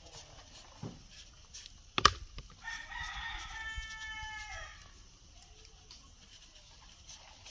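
A rooster crowing once, one long call of about two seconds that drops in pitch at the end. Just before it comes a sharp knock.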